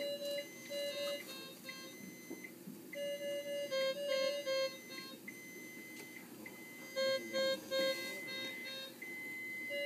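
An electronic beeping tune: short, steady, simple notes played in bursts with pauses between, like a toy's or electronic device's chime melody.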